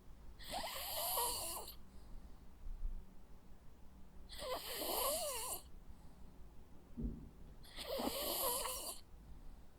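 Jack Russell terrier snoring in its sleep: three snores about three and a half seconds apart, each a rasping breath of about a second with a wavering pitch.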